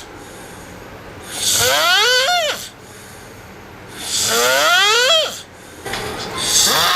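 A person snoring loudly: three long snores about two and a half seconds apart, each rising in pitch.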